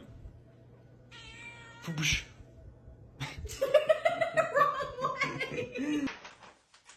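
A cat meowing: a short meow about a second in, then a louder, longer run of drawn-out, wavering yowls from about three to six seconds in.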